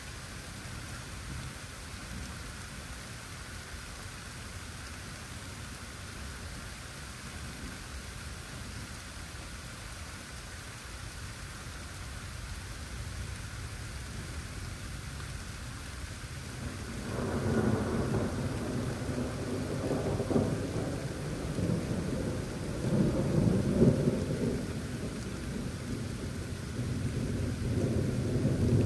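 Steady rain falling. A little over halfway through, a long rolling rumble of thunder builds and swells in several waves.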